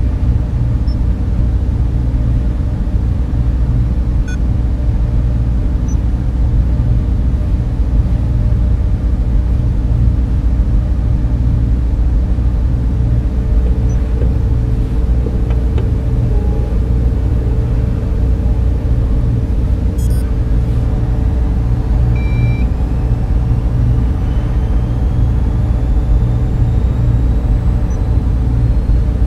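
Layered server-room ambience: a steady low electrical drone of server machines with fan and air-duct hum, dotted with occasional short electronic beeps and a few clicks. Near the end, faint thin tones slowly rise in pitch.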